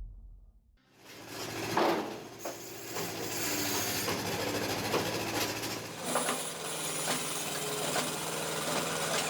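A wood-processing machine runs steadily with a low engine hum, with scattered sharp cracks and knocks of wood being split or cut.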